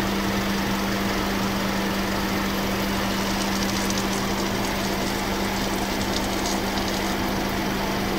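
Audi S3 8V's 2.0-litre turbocharged four-cylinder idling steadily with a constant hum. The engine is kept running to hold the DSG oil at temperature while its level plug is open and the excess oil drains.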